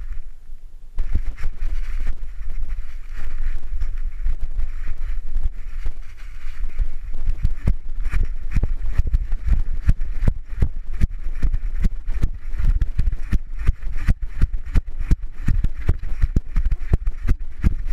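A GoPro strapped to a running dog's harness, jolting and knocking with each stride over a steady low rumble on the microphone. The knocks come thick and fast from about seven seconds in.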